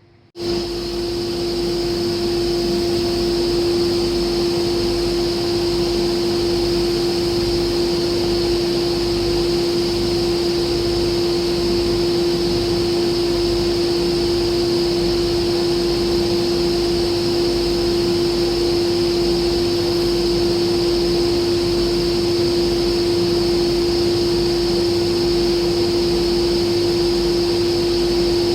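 A machine running steadily with a loud, constant hum at one fixed pitch. It cuts in abruptly just after the start and does not change.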